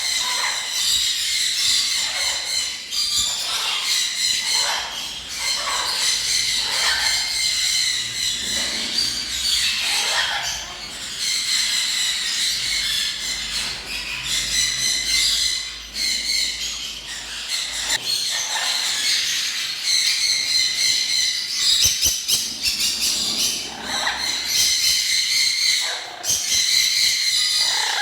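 A dense, continuous chorus of many small cage birds chirping and chattering together, with short calls that glide downward in pitch repeating throughout.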